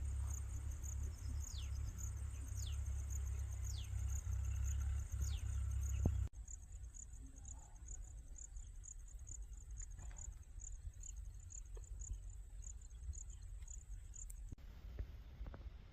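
Insects, cricket-like, chirping in a steady, fast pulsing trill. For the first six seconds a low rumble and a few short falling whistled calls sound over it, then both stop abruptly at a cut and the trill carries on more quietly.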